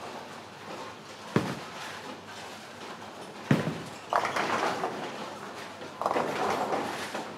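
Two bowling balls thud onto the lane about two seconds apart. Each is followed roughly two and a half seconds later by the clatter of pins being knocked down at the far end, echoing in a large hall.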